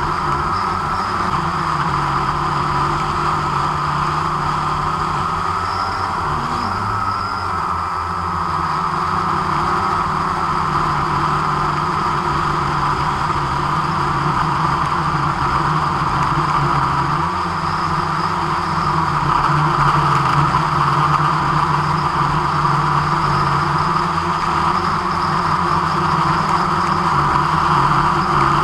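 A drone's electric motors and propellers running in flight: a steady multi-tone buzzing whine that gets slightly louder about two-thirds of the way in.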